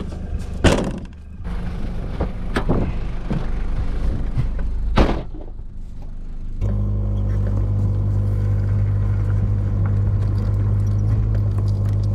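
A Toyota 4WD's rear door is slammed shut about a second in, another thud follows, and the driver's door shuts about five seconds in. The engine is then running steadily from about six and a half seconds in, with a low hum.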